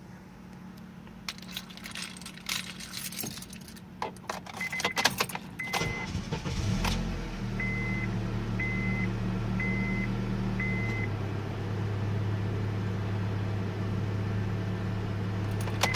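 Car keys jangle in the ignition. A dashboard chime beeps about once a second for several seconds. About seven seconds in the car's engine starts and then runs steadily at idle.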